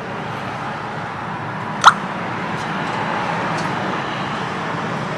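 Steady low hum and hiss of room background noise, with one short, sharp click about two seconds in.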